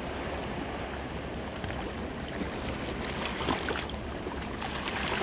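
Small sea waves washing and sloshing against shoreline rocks: a steady rush of water with a few faint ticks.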